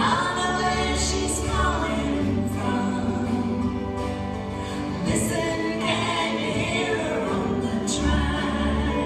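Female gospel vocal trio singing in harmony with held notes, backed by a band of bass, piano and guitar, with a steady low bass line.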